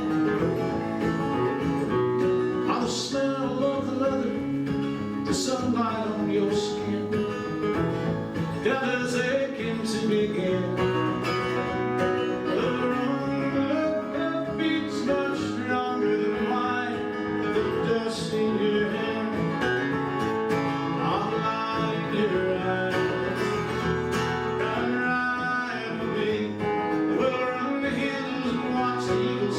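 Live acoustic guitar music in a country-western style.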